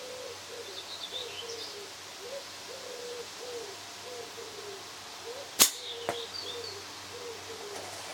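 A single slingshot shot with clay ammo: a sharp snap of the flat bands on release, then about half a second later a fainter crack of the clay ball striking the target. Birds call in the background.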